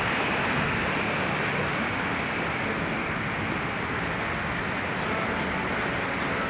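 Wind rushing over the camera's microphone on a moving Honda Click 150i scooter, with the steady hum of its single-cylinder engine and tyre noise beneath.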